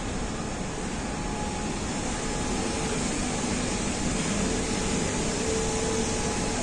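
Steady mechanical drone with a faint steady hum running through it.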